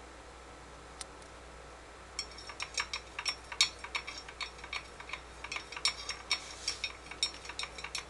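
Ragdoll kitten pawing at a glass bathroom scale: a quick, irregular run of small clicks and taps of claws and paw on the glass, starting about two seconds in.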